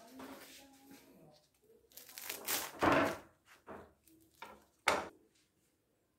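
Knife cutting through a crisp deep-fried lumpia (Filipino spring roll) on a wooden cutting board: the fried wrapper crackles and crunches, loudest about three seconds in, then gives a few short sharp crunches.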